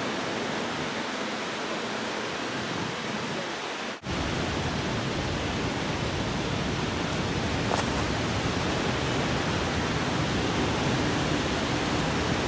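Steady outdoor hiss. It drops out briefly at a cut about four seconds in, and there is a faint click a little before eight seconds.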